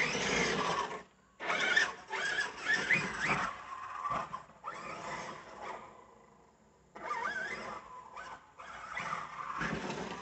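Losi DBXL-E 2.0 large-scale electric RC buggy driven hard over grass and dirt: the brushless motor whines, rising and falling in pitch with bursts of throttle, over tyre and dirt noise. The sound drops out briefly about a second in and goes quiet for about a second past the middle.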